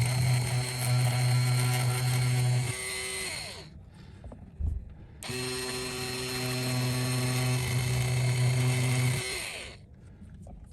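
Small electric rotary tool running in two runs of about four seconds each, stopping briefly in between, while it scrubs leftover OCA glue off a phone display.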